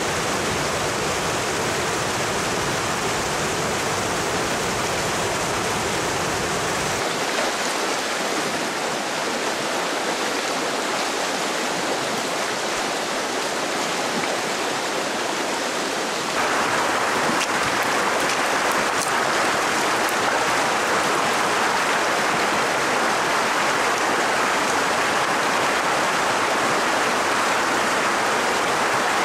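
Stream water rushing over rocks, first a small waterfall's steady pour. The sound changes abruptly about a quarter of the way in and again about halfway, when it grows louder and brighter as the water runs fast and shallow over a rocky bed.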